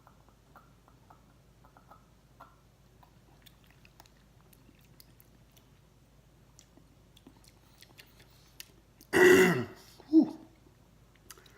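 A man clears his throat twice, about a second apart, the second one dropping in pitch, as the burn of the superhot pepper tincture he has just taken hits his throat. Before that, only faint light clicks.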